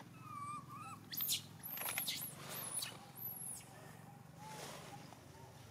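Baby macaque calling: two short wavering whimpers, then a run of about five shrill, very high squeals, which stop about halfway through.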